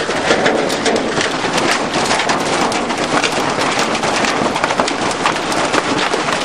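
Hailstones bigger than marbles pelting down on a roof in a dense, continuous clatter of hard impacts, like thunder on the roof.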